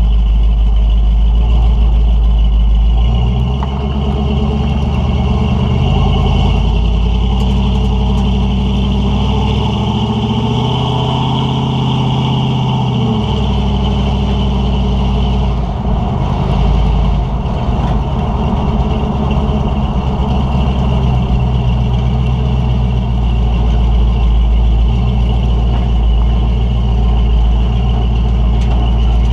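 1976 Ford F350's stock 460 big-block V8 running through Hedman headers and a dual 2½-inch exhaust with Thrush Welded mufflers, heard from beneath the moving truck. The engine note climbs in pitch for a few seconds, drops suddenly about thirteen seconds in, then holds steady.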